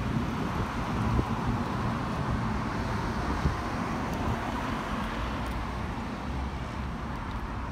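Steady road traffic noise with a car passing, and wind buffeting the microphone.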